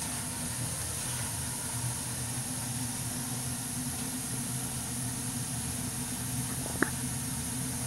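Burnham ES2 gas boiler equipment running: a steady low hum with an even hiss over it, and a single short click near the end.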